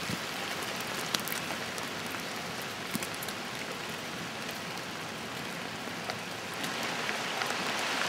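Steady rain falling with a constant hiss and a few scattered drops ticking close by.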